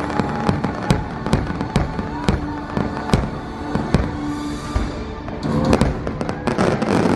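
Aerial fireworks bursting in quick succession, a sharp bang about every half second, ending in a dense crackle of many small reports.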